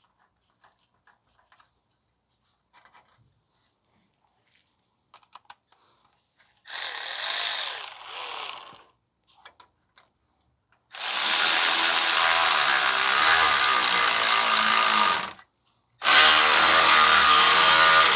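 Power tool running down the screws of worm-drive clamps around exhaust heat shields, in three runs: a short one about seven seconds in, a longer one of about four seconds, and another near the end. Faint clicks and taps come before the first run.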